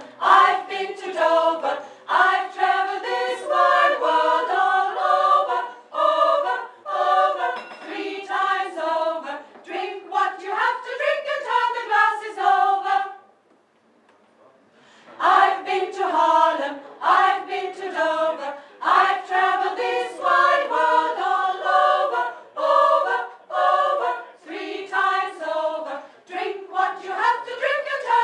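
Choir of mostly women's voices singing in phrased lines, with a brief break in the singing about halfway through before it starts again.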